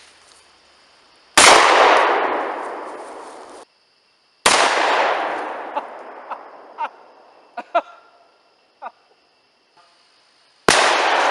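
Three shotgun blasts from a single-shot 12-gauge, about a second and a half in, about four and a half seconds in and near the end, each followed by a long echoing fade. A few light metallic clicks come between the second and third shots.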